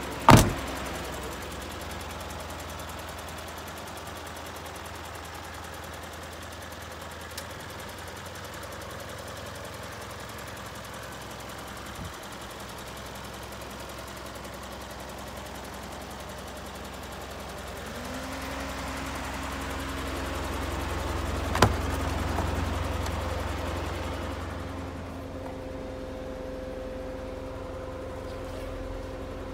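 Isuzu light-duty flatbed truck's engine idling steadily, with one sharp loud thump just after the start. The engine sound swells for a few seconds about two-thirds of the way through, and a steady hum sets in from there on.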